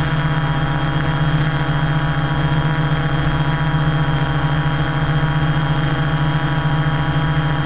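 Quadcopter's electric motors and propellers buzzing steadily as it holds altitude in a hover, heard close up from a camera mounted on the frame: a wavering low hum with a thin steady whine above it.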